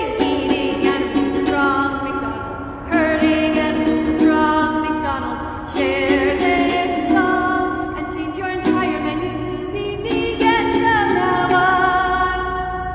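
A woman singing a simple tune to a strummed ukulele.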